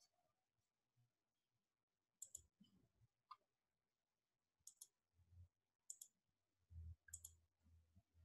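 Near silence with faint, sharp clicks, mostly in close pairs, four times over several seconds, and a faint low hum in the second half.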